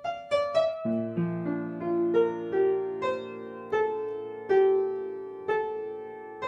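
Background piano music: a slow melody of single struck notes that ring and fade, over low notes that come in about a second in and are held.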